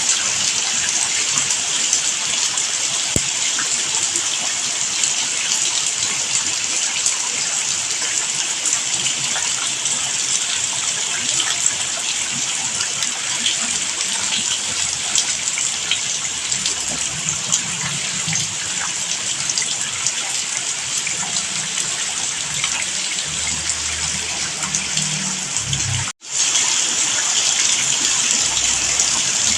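Steady heavy rain, a constant hiss of falling water, that cuts out for an instant near the end and then carries on.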